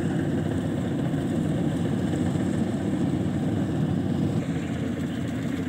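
Rice combine harvester's engine running steadily as the machine cuts standing rice, a little quieter from about four and a half seconds in.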